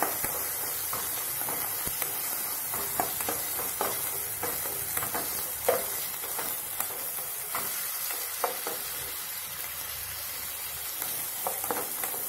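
Cut veldt grape (pirandai) stems frying in sesame oil in a non-stick kadai with a steady sizzle, stirred by a spatula that scrapes and taps against the pan at irregular moments, one knock louder a little before the middle.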